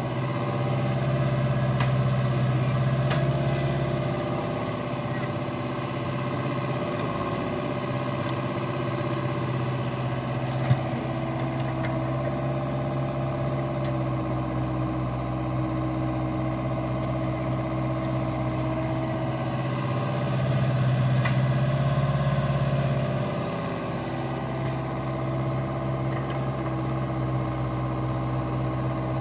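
Cat 304E mini excavator's diesel engine running steadily as the boom and bucket dig mud from a ditch. It swells louder twice, about a second in and again around twenty seconds in. A single sharp click comes near the middle.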